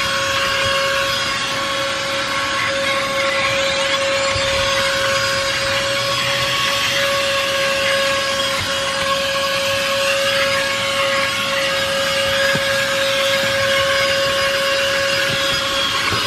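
Vacuum cleaner running steadily with its small brush attachment, a constant motor whine over a hiss that holds unchanged throughout.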